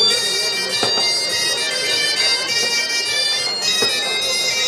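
Bagpipes playing a Breton dance tune, a piercing reedy melody stepping from note to note, with a couple of faint knocks.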